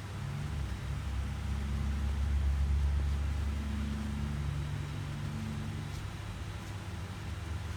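Car engine running: a low rumble that grows louder about two seconds in and then eases back.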